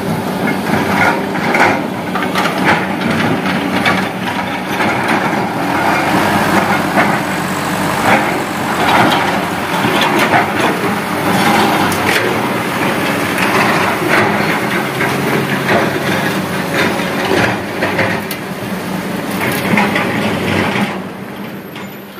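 Diesel engine of a Kobelco SK200 hydraulic excavator running under load while its bucket tips sand and gravel into a dump truck's steel bed, with dense, irregular rattling and clattering of stones. The sound drops somewhat about a second before the end.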